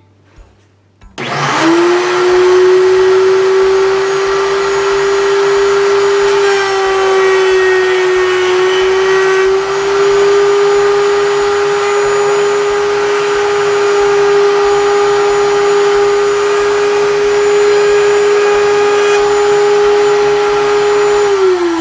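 Table-mounted router switched on at full speed: the motor whines up to a steady high pitch about a second in and runs while a board's straight edge is fed along the fence past the bit, the pitch dipping slightly for a moment midway. Near the end it is switched off and the whine starts falling.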